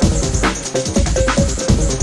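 Background electronic music with a steady beat and deep bass notes that slide downward.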